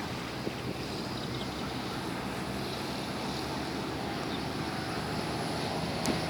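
City ambience: a steady wash of distant traffic noise with wind.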